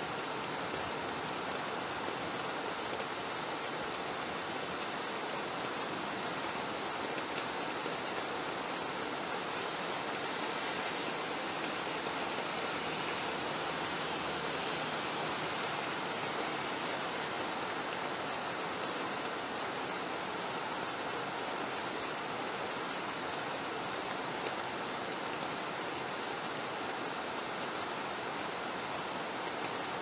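Steady rain falling, an even unbroken hiss with no drops or patters standing out.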